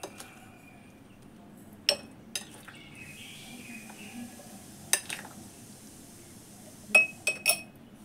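Metal spoon clinking and scraping against a bowl and a glass jar as green chilli pickle is spooned into the jar. There are a handful of sharp clinks a second or more apart, with a quick run of three near the end and soft wet scraping between them.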